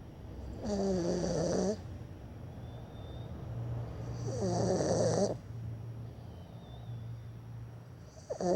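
Snoring in slow, even breaths: three snores about a second long each, roughly every three and a half seconds.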